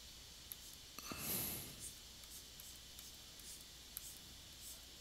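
A person's breathy exhale about a second in, over quiet room tone with a low hum and a few faint scattered light clicks.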